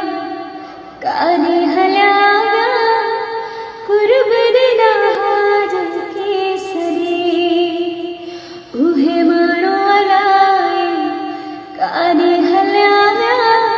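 A song laid over the picture: a high voice sings long, wavering held notes in phrases that start afresh about every three to four seconds.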